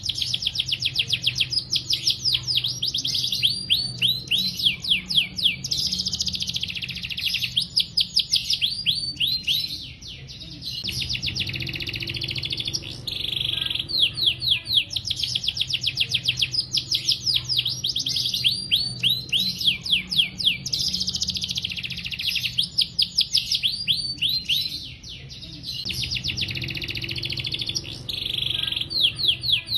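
Canary singing a long, unbroken song: runs of very rapid repeated chirps, trilled rolls, alternating with smoother sweeping notes, and barely a pause between phrases.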